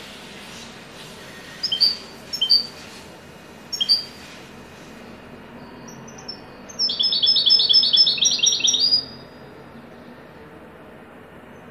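European goldfinch singing the 'haddadi' type of song: three short, high chirps spaced about a second apart, then a fast run of repeated high notes lasting about two seconds. A faint steady hiss runs underneath.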